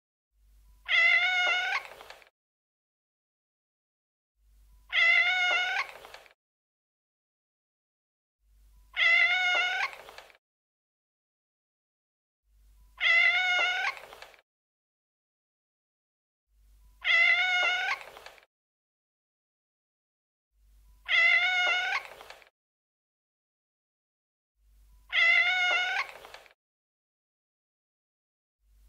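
A domestic cat meowing: the same long meow repeated about every four seconds, seven times, with silence between the calls.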